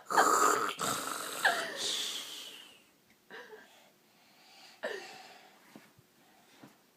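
A young child fake-snoring: rough, breathy snorts, loudest over the first two and a half seconds, then a couple of fainter, shorter snorts about three and a half and five seconds in.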